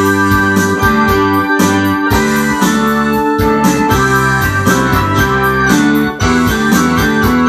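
Ensoniq SD-1 synthesizer playing a rock song: live keyboard chords over a sequencer-programmed backing with a steady drum beat. There is a short break about six seconds in.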